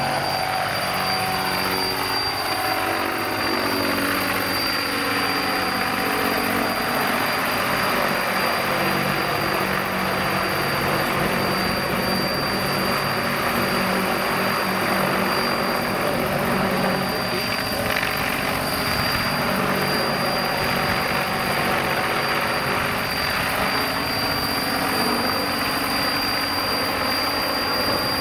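Scale RC model of a Boeing Vertol CH-113 Labrador twin-rotor helicopter, both rotors driven by a single electric motor, flying overhead: a steady whir of the spinning rotor blades with a thin, steady high whine over it.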